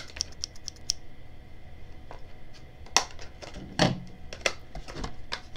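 Scissors snipping through a thin plastic tray: a run of quick small clicks in the first second, then a few sharper separate snips. A louder knock comes about four seconds in.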